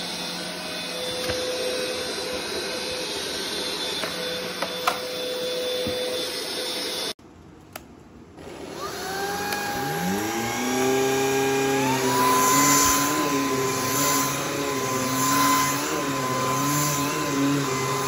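Stick vacuum cleaner running steadily, then stopping abruptly about seven seconds in. After a second or so of quiet, a stick vacuum's motor spins up with a rising whine, steps up to a higher pitch a few seconds later, and runs on steadily.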